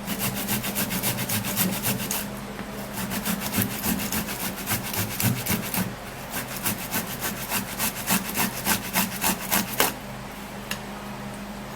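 A tomato being rubbed back and forth on a hand grater, a quick run of even scraping strokes that stops about ten seconds in.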